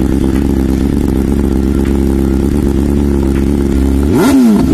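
BMW S1000RR's 999 cc inline-four idling steadily through an aftermarket exhaust, then a short throttle blip about four seconds in, the pitch rising and falling back to idle.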